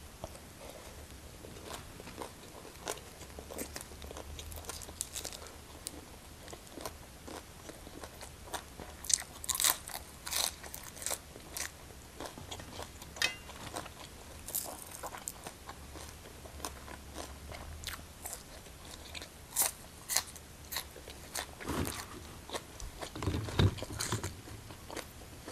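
A person chewing a mouthful of fried beef and papaya salad: crisp crunches and wet mouth clicks come irregularly, loudest about ten seconds in and again around twenty seconds in.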